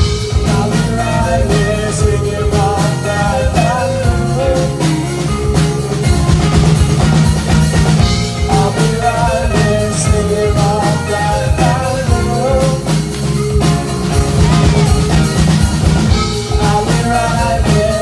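Live rock band playing: two electric guitars, electric bass and a drum kit, with a lead singer singing over them.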